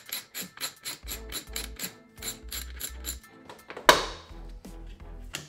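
Background music with a steady beat and evenly spaced clicks, about five a second. About four seconds in, a single loud knock that rings briefly.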